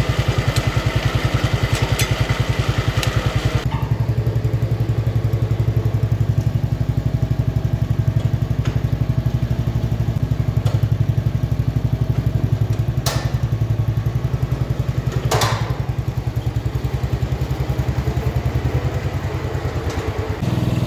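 A John Deere 112 garden tractor's single-cylinder Kohler engine running with an even pulse as it pulls a dead garden tractor on a sleeve-hitch drawbar. Two brief sharp sounds come partway through.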